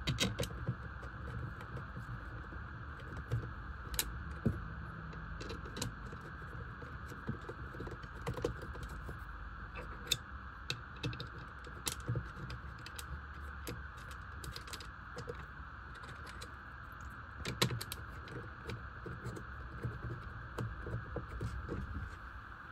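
Irregular small clicks and taps of a hand screwdriver driving mounting screws through a touchscreen enclosure into a wooden bulkhead, over a steady hiss.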